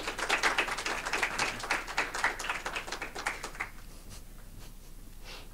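Audience applauding, a dense patter of many hands clapping that thins out and stops about three and a half seconds in.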